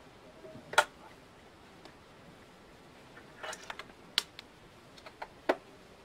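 A handful of sharp, separate clicks and taps over a low hiss: one a little under a second in, a quick cluster around the middle, then three more near the end.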